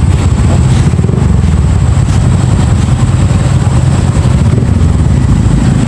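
Motorcycle engine running at low speed, a steady low rumble heard from the rider's own bike.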